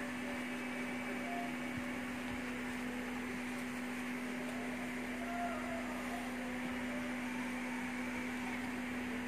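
A steady one-pitch electrical hum under a faint even hiss, from running bench equipment.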